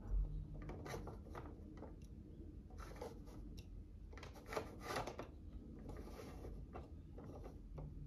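Plastic toy robot being handled and its head section turned by hand: a low thump at the start, then several short bursts of plastic scraping and rubbing, the strongest a little past the middle.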